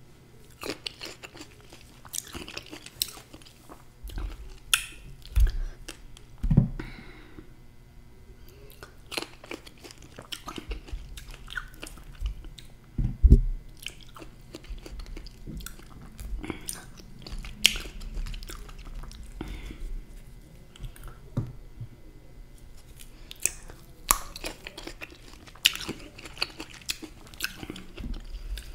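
Close-miked chewing and biting of cape gooseberries (golden berries): a steady run of wet mouth clicks and smacks, with a few dull thumps.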